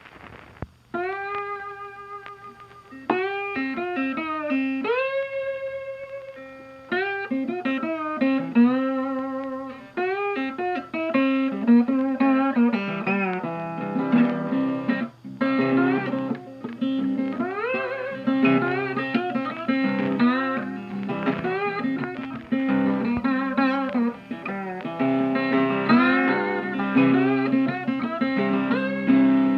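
Blues guitar music: single plucked notes with bent pitches, opening sparsely and then filling out into a busier part over a steady low note after about ten seconds.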